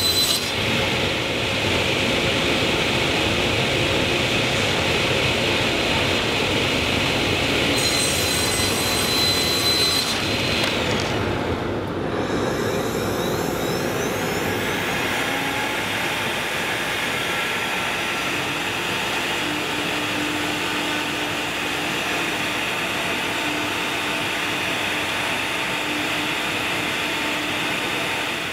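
Table saw cutting a sheet of King Color Core, a three-layer HDPE plastic, with a high whine over the steady noise. About eleven seconds in this gives way to a CNC Router Parts machine's spindle and dust-collection vacuum running steadily as the router cuts into the sheet.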